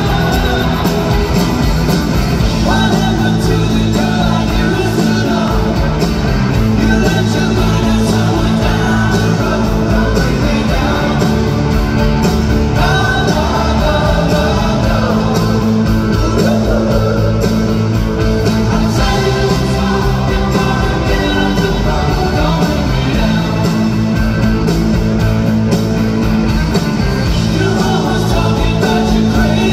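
Live rock band playing at full volume: electric guitars, bass guitar, drums and keyboards, with a lead vocal and backing singers.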